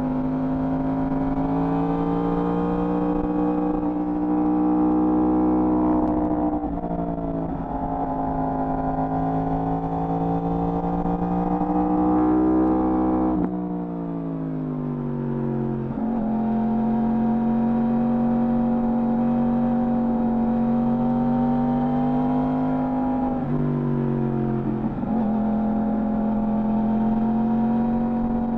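Yamaha R1 sport bike's inline-four engine through its stock exhaust, running under a steady throttle at mid revs. The pitch dips briefly three times as the revs drop off and pick up again, with a longer, deeper dip about halfway through.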